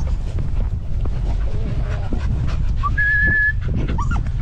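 A dog whining: a couple of short high whines and one held steady for about half a second near the end, over a steady low rumble.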